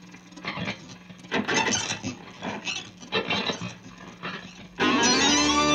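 Irregular scratchy rustling over a steady low hum, then, near the end, a loud sustained lead guitar note cuts in and bends upward in pitch.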